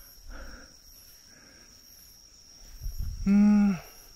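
Night insects singing: a steady, thin, high-pitched trill runs throughout. About three seconds in, a man gives a short hummed 'mm', the loudest sound, just after a light rustle.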